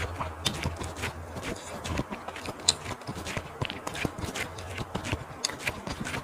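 Close-miked chewing of barbecue sausage and lettuce: irregular moist clicks and crisp crunches, several a second.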